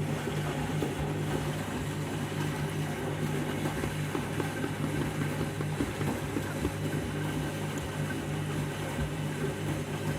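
Candy washing machine running in its deep rinse, a steady low hum under a continuous rushing, churning noise.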